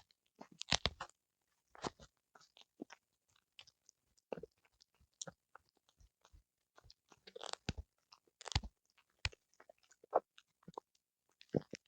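Dog crunching and chewing on a whole conger eel: irregular sharp crunches, with louder clusters about a second in and again around seven and a half to eight and a half seconds.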